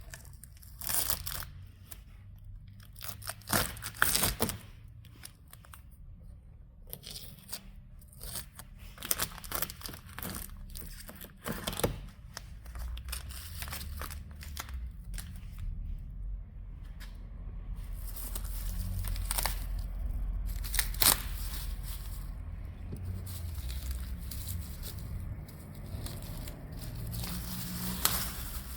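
Irregular tearing and crinkling of sheet material in short bursts, with a few sharp knocks.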